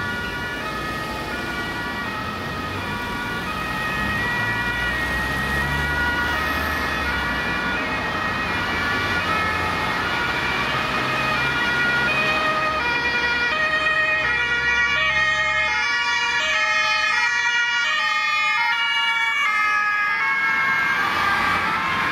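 German two-tone sirens (Martinshorn) on an ambulance and a police car, each switching back and forth between two pitches out of step with the other, getting louder as the vehicles come closer. Traffic runs underneath.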